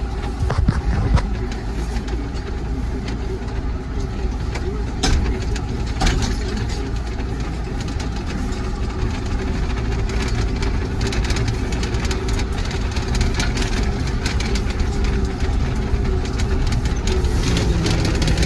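John Deere tractor's diesel engine running steadily under way, heard from inside the cab, with occasional short clicks and rattles.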